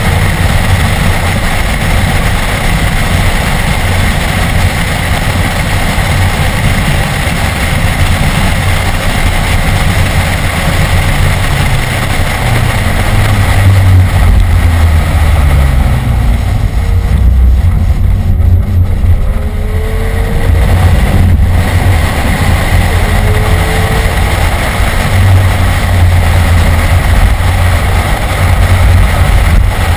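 BMW E46 M3's S54 straight-six running hard under track driving, heard from inside the cabin with road and wind noise. Just past the middle the sound softens and the revs slide for a few seconds as the car slows through a corner, then it pulls hard again.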